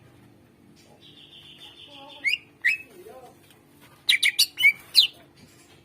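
Cucak ijo (greater green leafbird) singing. About a second in comes a buzzy held note, then two sharp calls, then near the end a quick run of loud, sharp whistled notes.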